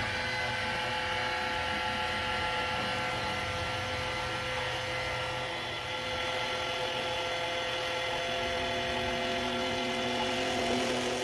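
Ultimate Speed electric oil extractor pump, run off the car battery, whining steadily with several fixed pitches as it sucks engine oil up through the dipstick tube. Its steady note shows it is picking up oil well.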